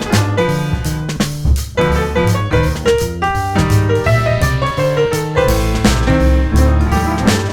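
Relaxing instrumental music led by piano, with a light drum beat.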